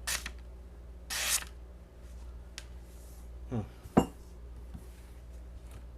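Folding knife blade slicing through paper, heard as a short hiss about a second in, with paper rustling. A sharp click about four seconds in is the loudest sound.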